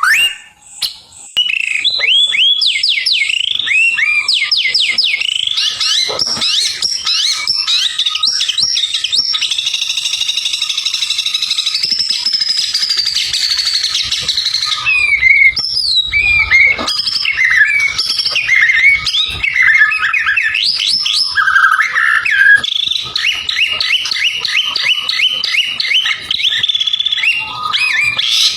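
White-rumped shama (murai batu) singing continuously and loudly: quick runs of short sweeping notes, a long trill near the middle, then varied whistled phrases.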